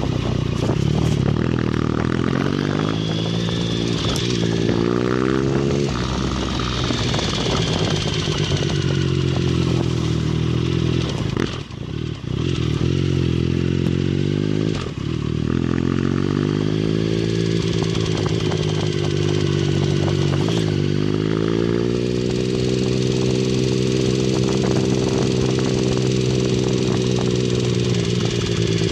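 2009 Triumph Speed Triple's inline-three engine running with a ticking noise. It is revved up and down a few times in the first half, then held at a steady speed. The tick remains after a timing-chain replacement; the dealer suspects a small-end bearing in the middle cylinder.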